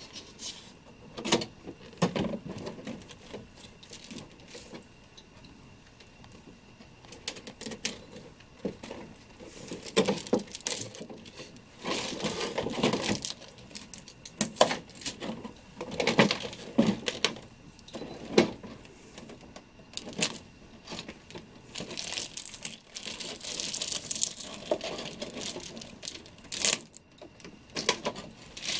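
Clear plastic packaging crinkling and rustling in short, irregular bursts as it is handled and pulled out of a cardboard box.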